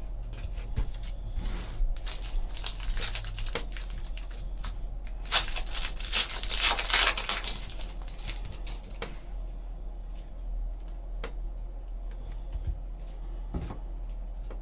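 Trading-card pack wrappers being torn open and crinkled, with cards handled, loudest in the middle stretch, then a few scattered clicks.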